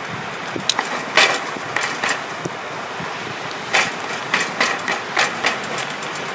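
Scattered sharp knocks and clicks, some in quick pairs, over a steady rushing noise.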